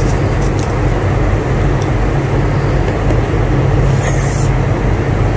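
A steady low hum runs throughout. About four seconds in, a pencil makes a brief scratch as it is drawn along a ruler on paper.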